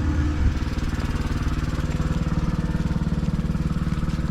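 A small engine running steadily at a constant speed, its firing a fast, even beat with no change in pitch.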